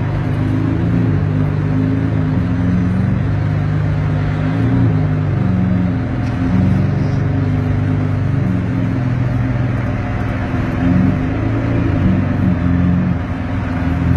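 Ferrari engine running at low revs while the car creeps forward, a steady low-pitched note that rises and falls slightly as the throttle changes.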